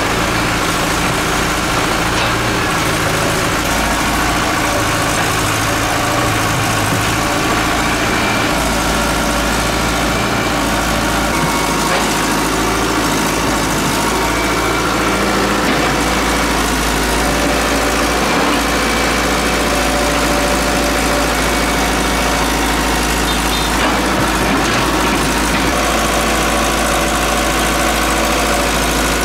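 Hitachi excavator's diesel engine running steadily while it digs and loads soil. Its engine note shifts about eight seconds in and again near the end.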